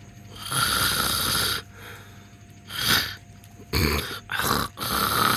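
A person snoring in several loud, breathy snores in a row, with short quiet gaps between them; the longest snore comes near the end.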